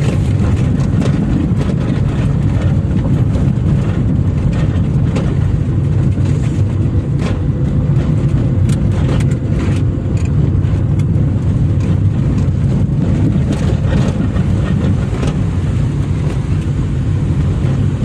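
Car driving along a rough farm track: a steady low engine and road rumble with frequent small knocks and rattles.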